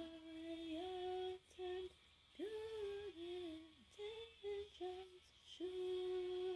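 A woman humming a slow, wordless tune in held notes, phrase by phrase with short breaks.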